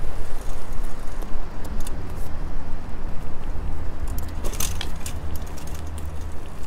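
Riding a bicycle with an action camera: wind buffets the microphone as a steady low rumble, with scattered light rattles and clicks from the bike. A short, denser rattle comes about four and a half seconds in.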